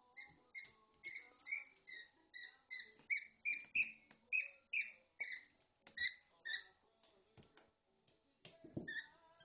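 Rapid series of short, high-pitched squeaks, about two to three a second, as from a rubber squeaky toy being chewed and squeezed by a Bernese Mountain Dog puppy. The squeaking stops about six and a half seconds in; a soft thump and one last squeak come near the end.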